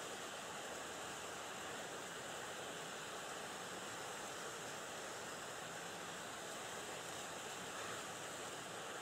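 Steady, even hiss of light wind and rippling lake water, with no distinct sounds standing out.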